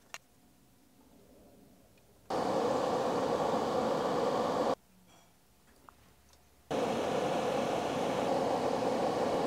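Benchtop fume extractor fan running, a steady rush of air heard in two stretches that start and stop abruptly, with near silence before and between them.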